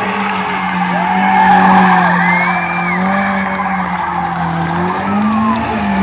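A rally car's engine held at high, fairly steady revs as the car drifts sideways, with tyres skidding and squealing. The skid noise is loudest about one and a half to two seconds in, and the revs climb a little near the end.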